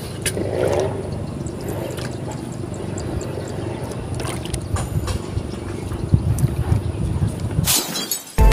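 A hooked fish thrashing and splashing at the water's surface over a fluctuating low rumble. Near the end a sudden glass-shattering sound effect, with music just starting.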